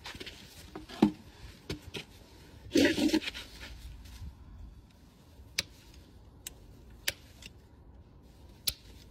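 A Shire horse's heavy rear hoof is set onto a metal farrier's hoof stand. There is a sharp knock about a second in, then a brief scraping rustle as the hoof settles. A few sharp, spaced clicks follow as the farrier handles his tools.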